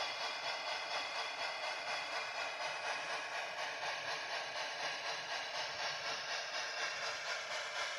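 QSI Titan DCC sound decoder in a model PRR E6s Atlantic steam locomotive, playing steam exhaust chuffing through the model's speaker: a steady hiss pulsing in an even rhythm.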